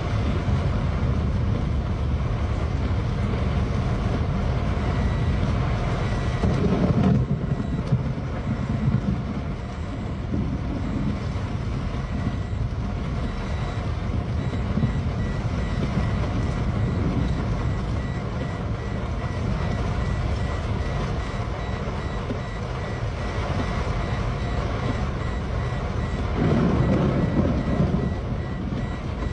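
A car's seatbelt warning chime beeping over and over, which the uploader attributes to a lightning strike, over the steady noise of heavy rain and driving. Two louder low rumbles swell up about a quarter of the way in and near the end.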